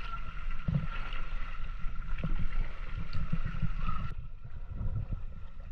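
Seawater sloshing and splashing against the side of a small outrigger boat as a swimmer clings to it, with wind rumbling on the microphone. The higher hiss drops away suddenly about four seconds in.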